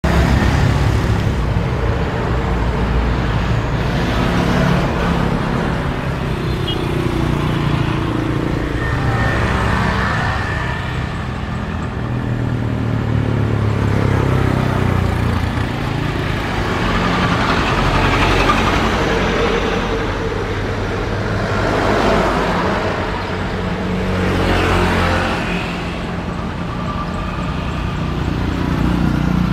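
Steady engine and traffic rumble, with several swells of noise as something passes.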